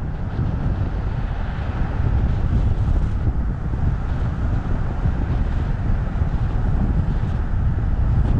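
A car driving along a road, heard from inside the cabin: a steady low rumble of tyres and engine with no breaks.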